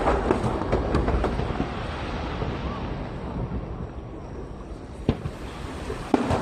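Aerial fireworks shells bursting: a cluster of sharp bangs and crackles in the first second and a half, then a lull of low rumble and wind on the microphone, and two sharp bangs about a second apart near the end.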